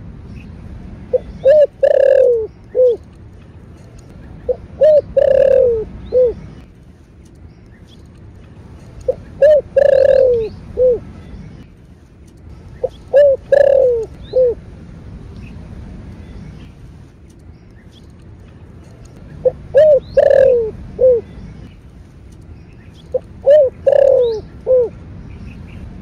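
Spotted dove (Streptopelia chinensis) cooing its calling song: six repeated phrases, each a couple of short notes, a longer falling coo and a short final note.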